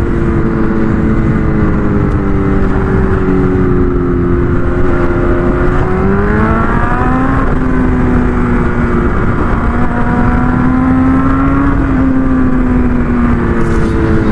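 Motorcycle engine heard from a camera on the moving bike: the revs sink slowly as the throttle is eased, rise quickly about six seconds in, hold steady, then ease down again near the end, over a steady rush of noise.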